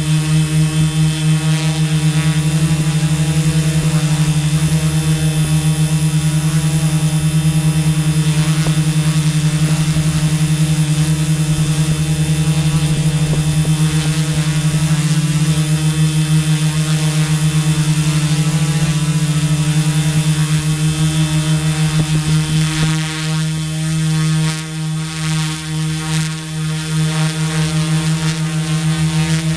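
Turnigy Multistar 4822-690Kv brushless motors and propellers of a Tarot Iron Man 650 multirotor in flight, heard from on board: a loud, steady buzzing hum. About three quarters of the way through, the pitch and level waver for a few seconds as the motors change thrust.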